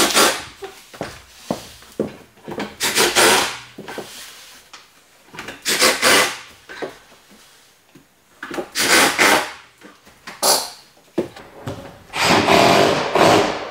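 Power drill driving screws into the wooden countertop in repeated short bursts, about five, with pauses between them and the longest run near the end.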